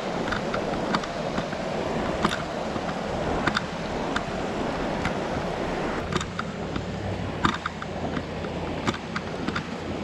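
Fast rocky mountain creek rushing steadily, with footsteps on a dirt trail making short crunches about once a second.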